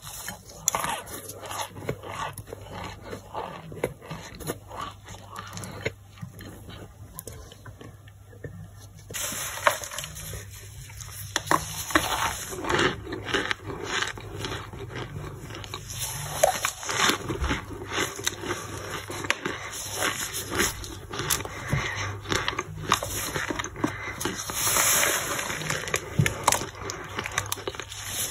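Chunks of dry boiled cornstarch brick being crushed and crumbled in gloved hands: a dense run of crunches and crackles, softer at first and louder and crisper from about nine seconds in.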